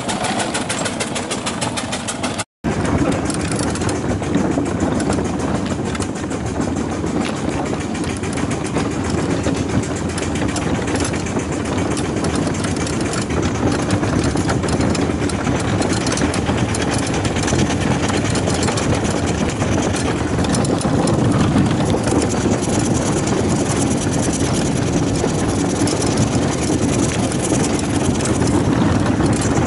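4-inch-scale Fowler steam traction engine running along a road, heard from on board: a steady mix of its exhaust beats and iron wheels rolling on tarmac. The sound cuts out for a moment about two and a half seconds in.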